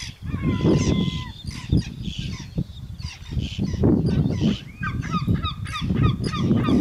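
Many birds calling over one another: a crowd of short, honking calls.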